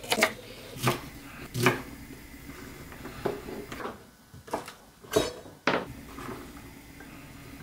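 Kitchen knife chopping string beans on a wooden cutting board: about nine sharp knocks of the blade on the wood, spaced unevenly.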